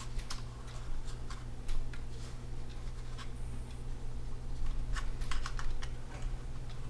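Light plastic clicks and handling noises as the small LiPo battery of a JXD 510W toy quadcopter is plugged into its connector and fitted into the battery compartment: scattered clicks, with a quick run of them about five seconds in.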